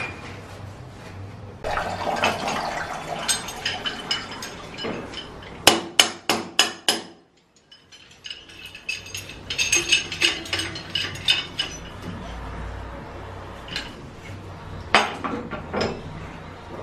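Pipe wrench clinking and scraping against an old brass wall tap as it is gripped and unscrewed, with a run of five loud sharp metal knocks about six seconds in. The sound drops out briefly just after the knocks, then the clinking resumes.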